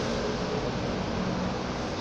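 Steady rushing background noise with a faint low hum underneath and no distinct events.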